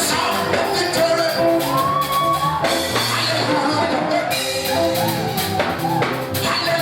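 Live gospel music from a church band: a drum kit keeping a steady beat under held instrumental chords, with a voice singing a gliding melody over it.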